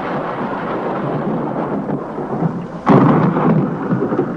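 Thunderstorm sound effect: a steady hiss of heavy rain, with a louder thunderclap about three seconds in that rolls away over about a second.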